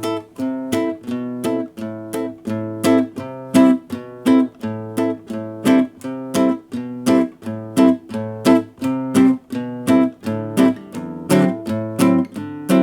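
Background music: an acoustic guitar strummed in a steady, even rhythm.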